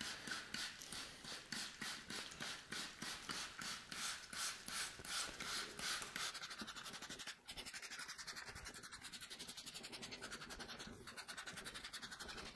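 Hand trigger spray bottle squirting engine cleaner onto an engine block: a long run of quick, even squirts, about three or four a second, with a short break about seven seconds in.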